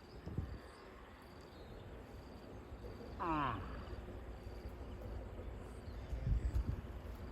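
Cows eating soil: low, gritty crunching and scraping bursts as they bite and chew the earth, loudest near the start and again about six seconds in. About three seconds in, a short animal call slides steeply down in pitch.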